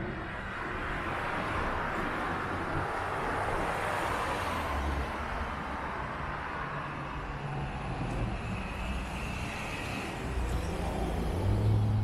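Street traffic passing: cars driving by with tyre and engine noise that swells and fades, and a louder low engine drone near the end.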